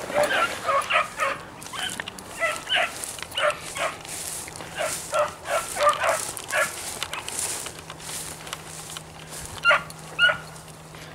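Beagle hounds barking: a quick run of short barks, a lull, then two louder barks near the end.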